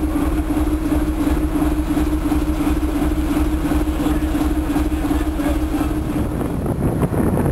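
A boat's diesel engine idling, a steady low throb under a constant hum. About six seconds in the hum stops and a rougher, rushing noise takes over.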